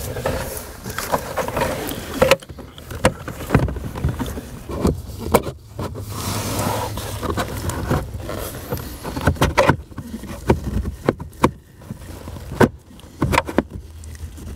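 Repeated plastic knocks, clicks and scrapes as a replacement 1998 Ford Contour blower motor is worked up into its housing under the dashboard and twisted to seat it.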